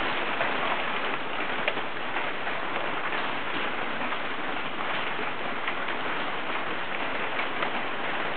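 Hail falling steadily: a dense hiss of countless small impacts, with sharper individual ticks of stones striking here and there.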